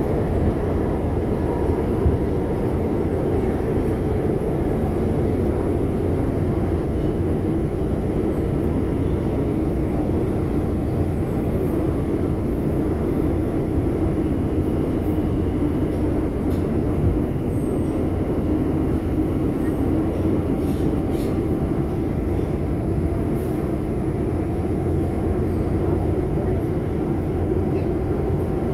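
Bombardier R142 subway train running at speed through a tunnel between stations: a loud, steady rumble of wheels on rail and traction motors, with a few faint clicks partway through.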